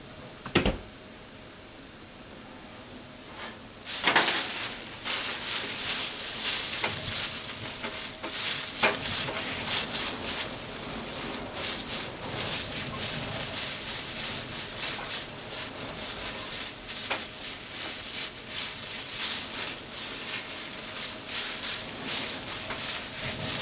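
Raw meat frying in a frying pan on a gas burner: a faint hiss at first with a single sharp tap just after the start, then about four seconds in the sizzling grows much louder, with dense crackling and many spitting pops of hot fat.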